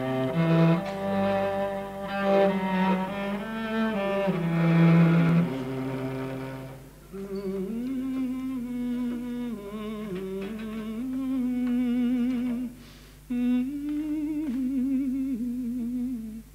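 Cello playing a slow bowed melody with vibrato, fuller and louder for the first several seconds, then a single line with a brief break about 13 seconds in.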